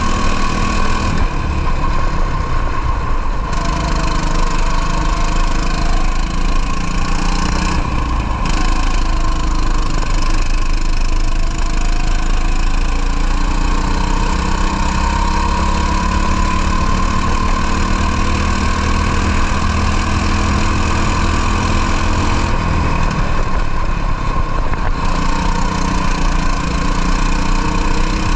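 Racing kart's two-stroke engine heard onboard, revving up and dropping back as the kart accelerates and lifts off, with the pitch climbing and falling over several seconds and three short lifts of the throttle.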